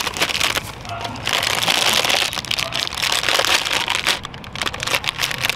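Clear plastic wrapping crinkling and rustling as it is pulled off a cardboard firework tube, in a dense run of small crackles.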